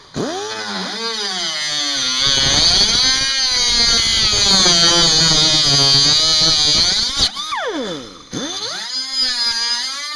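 Cutoff wheel cutting out rusted wheel-well sheet metal. The motor whine spins up, sags in pitch with a rough grinding noise as the disc bites into the metal, winds down about seven seconds in, then spins back up about a second later.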